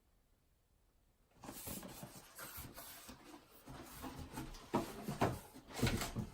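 A sneaker box being handled and opened: irregular rustling and scraping with several sharp knocks, starting about a second and a half in, as a pair of Nike Air Force 1 Highs is taken out.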